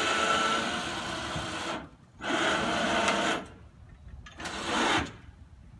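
A small electric motor running and stopping in three stretches: a long run that stops just under two seconds in, a second run of about a second, and a short last run near the end.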